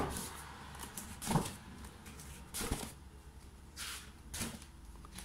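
Thick pages of a wallpaper sample book being turned by hand, each flapping over and landing with a short slap, five or so times at about one-second intervals, the first the loudest.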